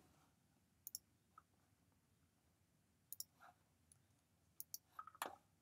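Scattered clicks of a computer mouse, several in quick pairs, over near-silent room tone.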